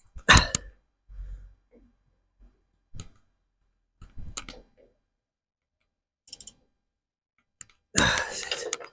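Scattered metallic clicks and knocks as a nut and bolt are tightened by hand, with a longer, louder scraping rustle near the end.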